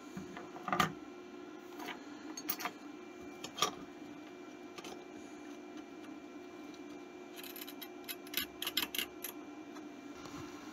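Light clicks and taps of hands handling a Commodore 64 circuit board and its parts: a few single clicks in the first half, then a quick cluster of clicks near the end, over a steady low hum.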